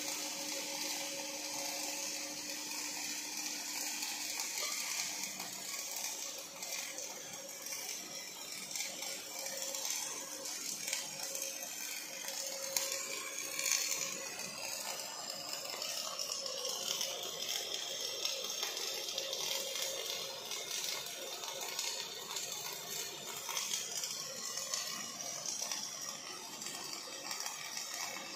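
Robotic arc welding of steel: the welding arc gives a steady crackling hiss that carries on unbroken, with a faint steady machine hum under it in the first half.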